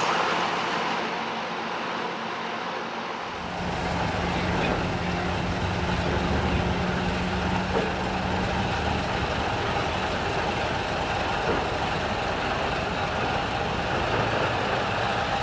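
Crawler crane's engine running steadily, growing deeper and fuller about three seconds in.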